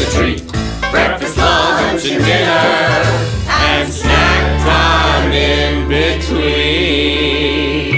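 Children's song playing as background music, with singing over a steady bass line.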